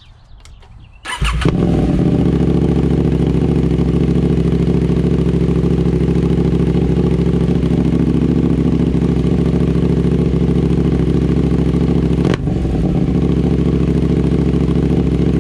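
KTM 890 Duke R parallel-twin engine starting about a second in and then idling loud and steady through an SC Project slip-on exhaust with the catalytic converter replaced by a decat pipe. There is one brief hiccup in the idle near the end.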